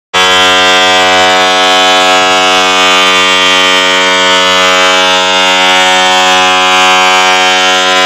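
San Jose Sharks goal horn sounding one long, steady, loud blast that starts abruptly, signalling a Sharks goal.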